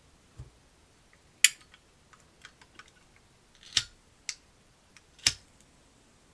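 Sharp metallic clicks from a Zippo lighter fitted with a flint-sparked butane insert: the lid is snapped open, then the flint wheel is struck twice, about a second and a half apart, and the insert lights on the second strike.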